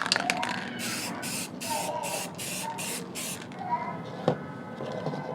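Aerosol spray can of flat clear lacquer hissing in quick short bursts, about seven in two and a half seconds, as a thin protective coat goes onto the painted speaker grill; the spraying stops partway through, followed by a single click.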